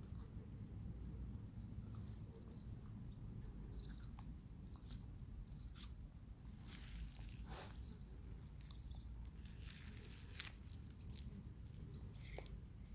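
Leopard tortoise biting and chewing its food: scattered small crunches and clicks over a steady low hum.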